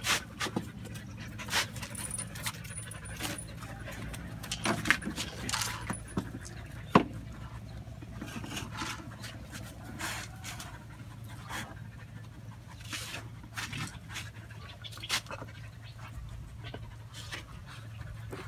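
Thai Ridgeback dogs panting close by, with many short, scattered clicks and rustles as they move and sniff around.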